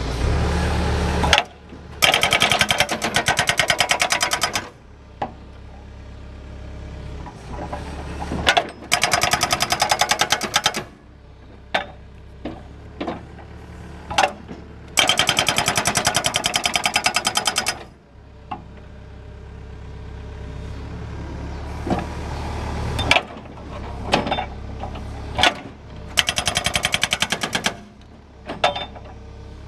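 JRB WB140 hydraulic impact hammer on an excavator firing in bursts of rapid blows, each burst lasting two to three seconds, about five times. Between bursts the excavator's engine runs on steadily, with a few single sharp knocks.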